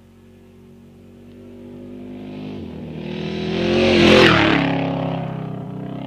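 Desert race truck's engine approaching at speed, growing steadily louder, passing close about four seconds in with a rush of noise, then dropping in pitch and fading as it speeds away.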